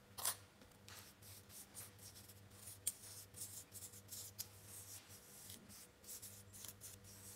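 A spatula scraping and smoothing moist soil paste in the metal cup of a Casagrande liquid limit device: faint, irregular scrapes and light taps, over a low steady hum.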